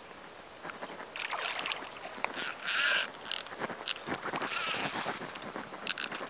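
A hooked fish struggling at the reed edge: water splashing and reeds rustling, with two louder bursts, one about two and a half seconds in and another about four and a half seconds in, among scattered small clicks.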